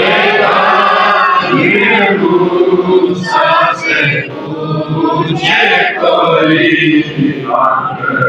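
A mosque congregation of men and boys chanting a devotional recitation together in unison, with long held notes and short breaks.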